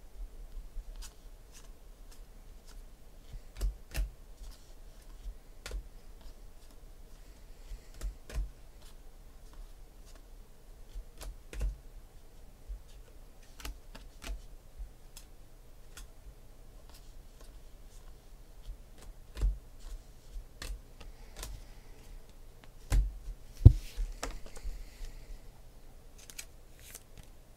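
2016 Panini Phoenix football trading cards being flipped through and handled: irregular light clicks and snaps of card stock. A few louder taps, the loudest a little before the end, as cards are set down on the stacks on the table.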